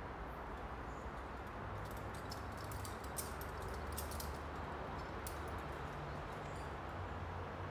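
Steady outdoor background noise with a low rumble, and a run of faint, quick clicks and ticks from about two seconds in to about five and a half seconds.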